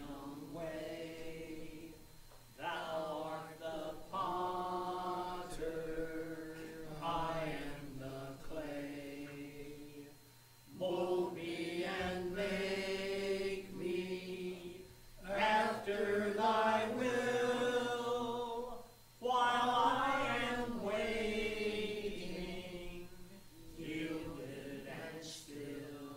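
Church congregation singing a hymn in long, slow held phrases, with short pauses for breath between the lines.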